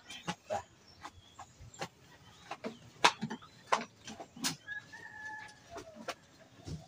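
Chickens clucking, with one drawn-out call about five seconds in, over a run of sharp knocks and creaks from a bamboo hut's frame and floor as someone climbs up into it.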